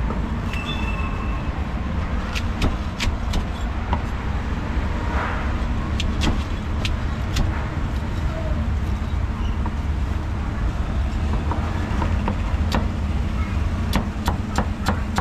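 Cleaver chopping crispy roast pork belly on a wooden chopping board: sharp knocks at irregular intervals, with a quick run of chops near the end. Under it, a steady low rumble of street traffic.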